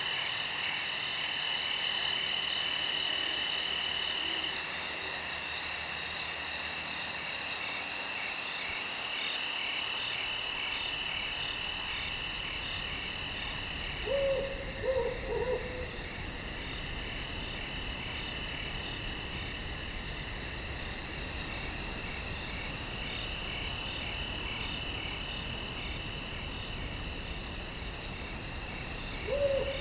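Insects trilling in a steady, pulsing night chorus, with an owl hooting a short series of falling notes about halfway through and again at the very end.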